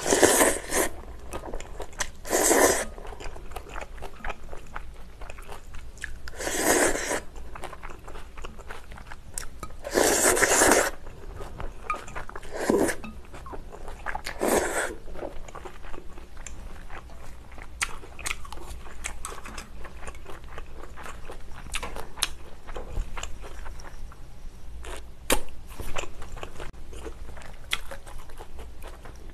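Close-miked eating: spicy jjolmyeon noodles slurped in several loud bursts of up to about a second over the first fifteen seconds, then wet chewing clicks that keep on to the end.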